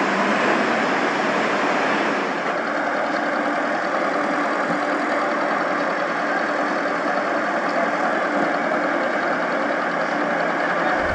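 An engine or machine running steadily at idle, a dense drone with a few faint steady hums, dropping slightly in level about two seconds in.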